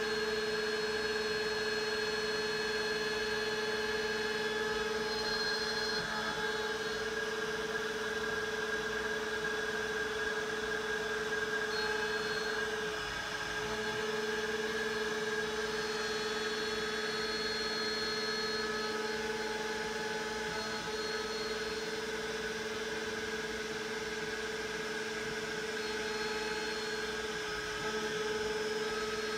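Makita trim router spinning at high speed as the spindle of a homemade CNC machine, its bit milling pockets into a board: a steady whine, with brief dips in pitch about halfway and near the end.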